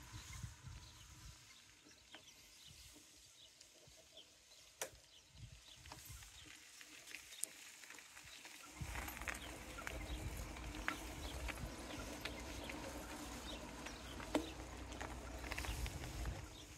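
Footsteps and scattered light clicks on a paved path while walking. A low wind rumble on the microphone sets in about halfway through.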